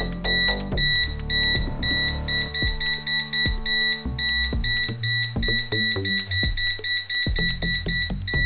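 Peakmeter PM18 multimeter's non-contact voltage detector beeping rapidly, a high beep about four times a second: it is sensing live mains voltage in the lamp cable. Background music with a beat plays underneath.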